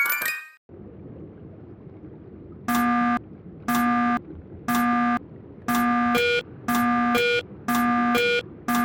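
Japanese railroad crossing warning bell ringing at about one ding a second, starting about three seconds in over a low steady hum; a second, higher ding joins alternating with it from about six seconds in. A short tail of glockenspiel-like music dies out at the very start.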